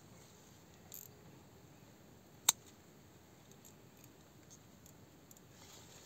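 Small scissors snipping berries out of a grape cluster to thin it: one sharp snip about two and a half seconds in, with fainter clicks and rustling of the bunch around it.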